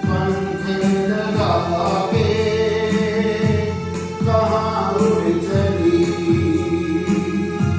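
Hindi song: singing over a music backing with a steady beat.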